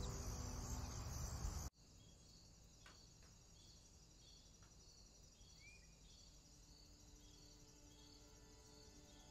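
Background music stops abruptly a couple of seconds in. It leaves faint outdoor ambience of insects chirping: high chirps repeated at an even pace. There is one short higher note midway and a few faint clicks.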